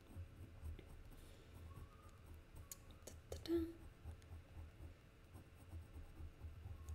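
Faint scratching of an ink pen on paper as short hatching strokes are drawn, with a few light clicks around the middle.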